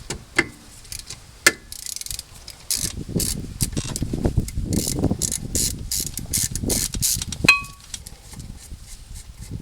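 Ratchet socket wrench clicking in a fast run as a 14mm brake caliper bolt is backed out, after a few separate clicks. Near the end comes a single metallic clink that rings briefly.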